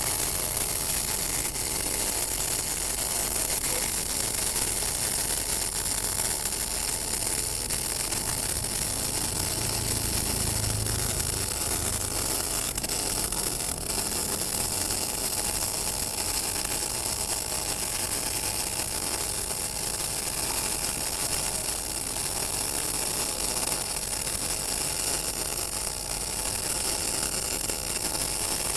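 MIG welding arc from a TOPGUN MIG-315VS welder burning solid wire on 8 mm steel plate, set to about 180 amps and 22.2 volts, running as one steady hiss without a break.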